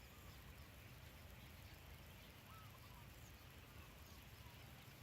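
Near silence with faint bird calls: a few short warbled chirps about two and a half seconds in and again near four seconds.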